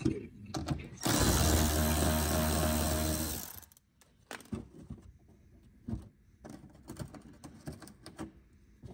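Milwaukee cordless power ratchet with a 7 mm socket, spinning out a fender-liner screw. The motor starts about a second in, runs steadily for about two and a half seconds and stops. Light clicks and handling of the loosened screw follow.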